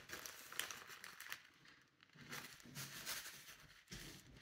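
Faint crinkling of a small plastic zip bag being handled, in two spells with a short pause between.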